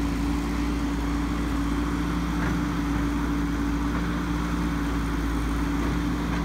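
Tracked excavator's diesel engine running at a steady speed with a constant hum.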